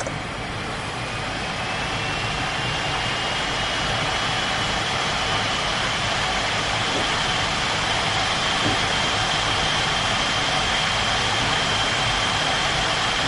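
Dell Vostro V131 laptop's two cooling fans running, a steady hiss with a high-pitched whine. Over the first few seconds the whine rises in pitch and the noise grows louder as the fans spin up, then it holds steady.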